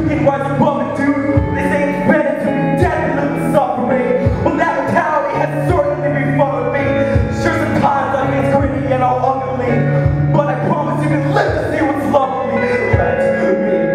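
Man singing into a microphone over a song's music with a steady beat and sustained low bass notes.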